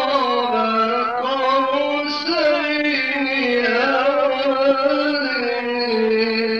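A male Quran reciter chanting in the melodic mujawwad style, drawing out a long, ornamented phrase whose pitch glides and wavers.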